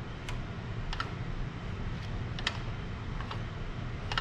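Light, irregular metallic clicks from the valve train of a 79cc Predator single-cylinder overhead-valve engine as its crankshaft is turned over slowly by hand, the rocker arms opening and closing the valves. The valve lash has just been set to about three thousandths of an inch.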